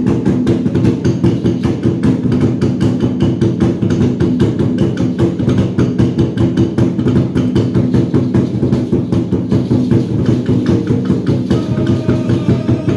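Steady, rapid drumming accompanying a Maya ritual dance, with higher held tones joining in near the end.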